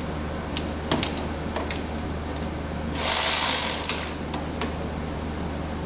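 A small Milwaukee cordless ratchet whirs for under a second, about three seconds in, spinning the nut off the starter's large power terminal. A few light metal clicks from the tool and terminal come before and after it, over a steady low hum.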